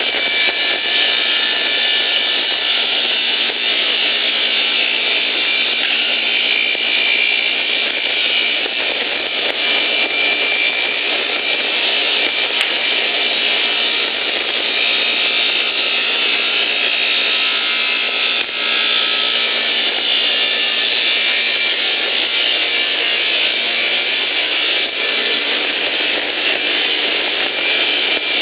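Wood-sawing machine running and cutting through logs as they are fed in: a steady, loud machine noise with no breaks.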